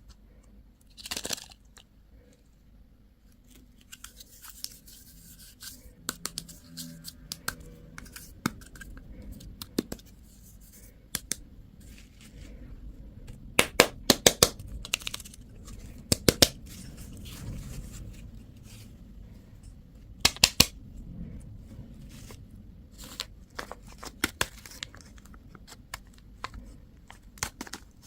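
Plastic candy and toy packaging being handled and opened: wrappers crinkling and tearing, with sharp plastic clicks and taps that come in short clusters every few seconds.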